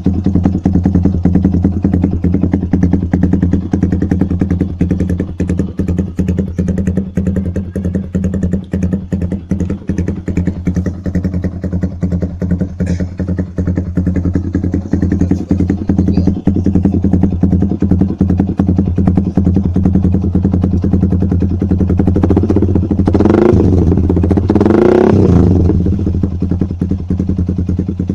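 Yamaha R15's single-cylinder four-stroke engine idling steadily through a Proliner TR1 aftermarket exhaust with the DB killer removed. About 22 seconds in it is revved twice in quick succession, the pitch rising and falling each time, before settling back to idle.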